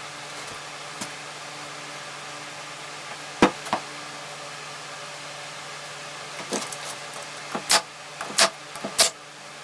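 Sharp knocks and clacks of wood and hand tools being handled on a workbench: two about three and a half seconds in, then a quicker run of louder ones over the last three seconds, over a steady low hum.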